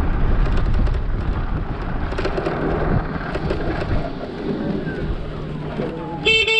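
Wind rumbling on the microphone while riding an electric scooter, with road noise underneath. Just before the end, a short beep that could be a horn.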